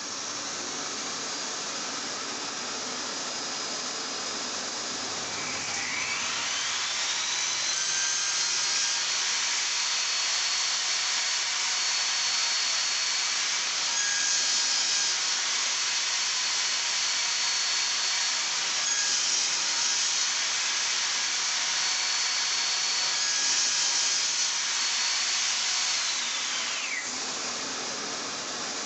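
An electric woodworking power tool spins up to a high whine about six seconds in and runs steadily, then winds down near the end. A steady machine noise runs beneath it throughout.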